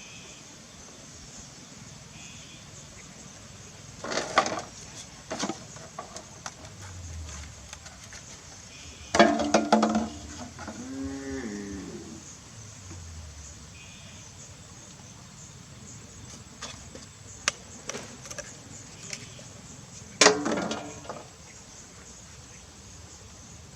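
Cattle lowing: several low, drawn-out moos that fall in pitch. Three louder sudden noises stand out, about 4 s in, about 9 s in, and about 20 s in.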